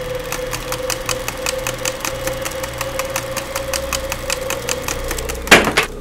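Old film projector running: a steady hum under rapid, even mechanical clicking. A short, very loud burst of noise cuts in about five and a half seconds in.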